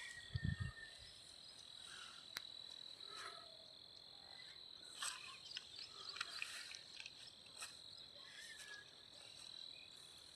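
Faint steady high-pitched insect drone, with scattered short chirps and a brief low thump about half a second in.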